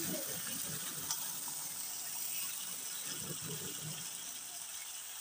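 Chicken pieces and fried onions sizzling in a kadhai with a steady hiss, while a metal spatula stirs and scrapes through them in bouts near the start and again about three seconds in.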